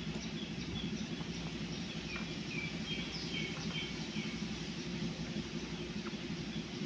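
Steady low background hum, with faint, short bird chirps repeating through the first half.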